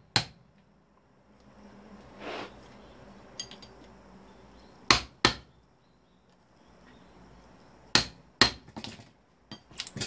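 Hammer blows on a microwave oven's magnetron to knock its magnets loose: sharp metallic strikes, one at the start, a pair about five seconds in and another pair about eight seconds in, followed by a few light clinks near the end.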